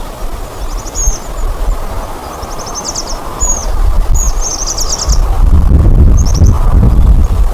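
Small birds chirping, with repeated short high calls and quick trills. A low rumble under them swells in the second half and becomes the loudest sound.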